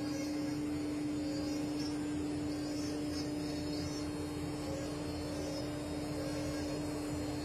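Rhino CNC router spindle running with a steady, unchanging whine while the bit carves wood, with a shifting cutting hiss over it.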